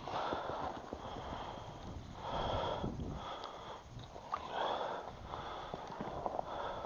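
A person breathing heavily, one breath about every two seconds, over faint scattered crunches like steps in snow.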